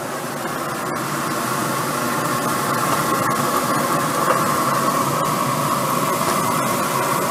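Marinated chicken thighs sizzling on a hot grill grate: a steady hiss that grows louder about two seconds in.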